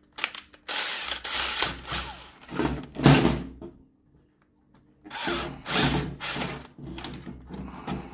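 Electric drill boring out a hole in a snowboard binding part in bursts, with a pause of about a second past the middle before drilling resumes.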